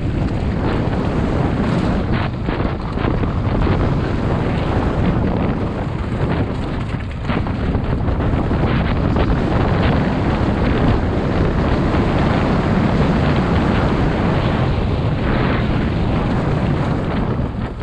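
Wind rushing over the microphone of a camera on a mountain bike descending a loose, rocky trail at speed. Over it the tyres crunch across stones and the bike rattles in a stream of short clicks and knocks.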